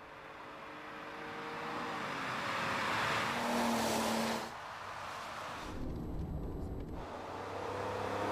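Armoured BMW 750iL E38's V12 engine and tyres as the car drives past on a road, the sound swelling to a peak about four seconds in and cutting off abruptly. A low rumble follows, then another approach builds near the end.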